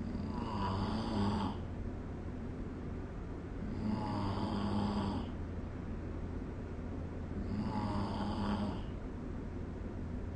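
A person snoring in sleep: three snores, each lasting about a second, spaced roughly every four seconds, over a steady low hum.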